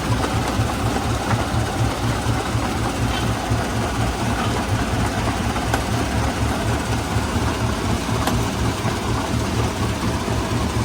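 Heavy stone-crushing plant machinery running steadily, with a fast low throb and a few faint clicks over it.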